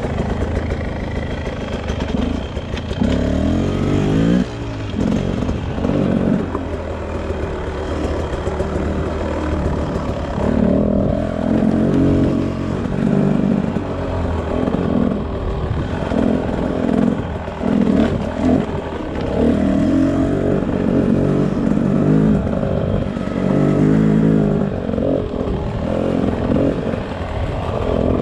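Beta RR 300 two-stroke single-cylinder enduro motorcycle engine running, its revs rising and falling over and over in short blips.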